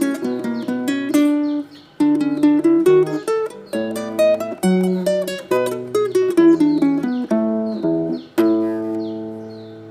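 Acoustic guitar music, plucked and strummed chords, ending on a last chord struck about eight and a half seconds in that rings out and fades. Faint short bird chirps sound over it, clearest as the chord dies away.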